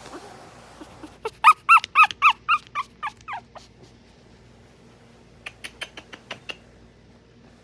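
Young puppy whimpering: a quick run of about eight short, high, squeaky whimpers, each bending up and down in pitch, then a few fainter short sounds about two seconds later.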